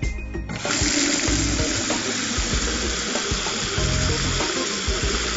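Water gushing from a Hansgrohe single-lever mixer tap into a sink. It comes on suddenly about half a second in and then flows steadily, freshly reassembled after the cartridge swap.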